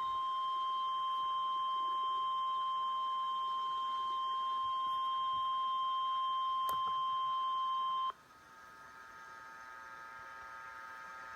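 NOAA Weather Radio 1050 Hz warning alarm tone: one steady, piercing beep that cuts off suddenly about eight seconds in, signalling that a warning broadcast follows. After it, only a faint steady hum from the radio stream.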